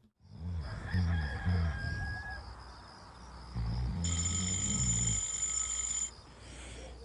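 A rooster crowing, used as a morning wake-up sound effect. About four seconds in, a steady high ringing joins it for about a second.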